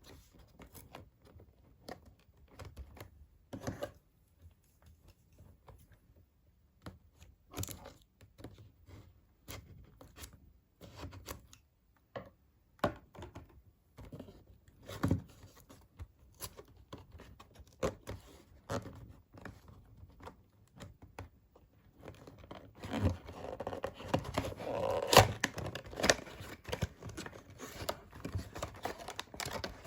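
Doll packaging being opened by hand: scattered knocks, clicks and scrapes, then from about two-thirds of the way in a denser stretch of tearing and crinkling.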